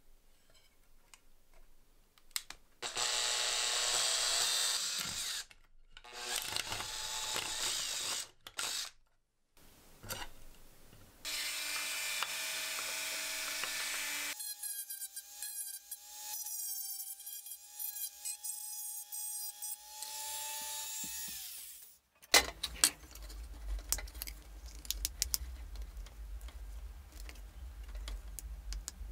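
An electric drill boring through a thin metal jar lid in three bursts. Then a flex-shaft rotary tool runs with a steady whine for several seconds while working the lid, and stops suddenly. After that come small clicks and knocks from handling the lid.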